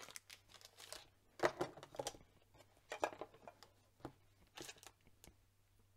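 Scattered soft rustles and light taps of hands handling paper and stamping supplies on a craft desk, dying away near the end.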